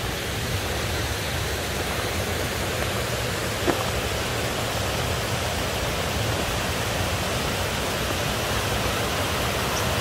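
Steady rush of flowing water, an even noise, with one faint click just under four seconds in.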